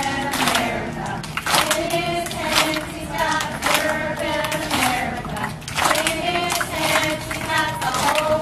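A large group of children singing together in unison, clapping along with the song.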